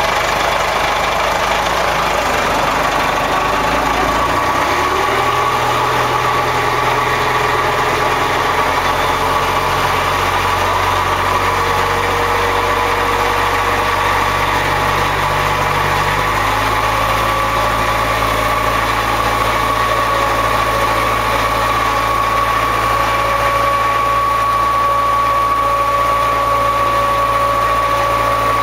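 Motorboat engine running steadily as the boat moves along the river, its note shifting slightly a couple of times.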